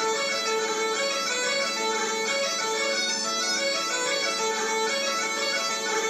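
HakamDin bellows-blown border pipes playing a tune: the chanter moves from note to note over a steady drone.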